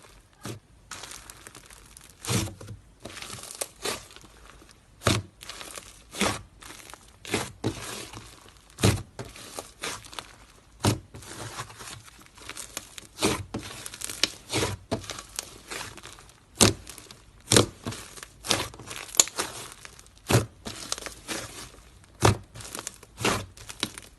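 Slime being squeezed and pulled by hand, giving a steady soft crinkling with sharp crackling pops about once a second.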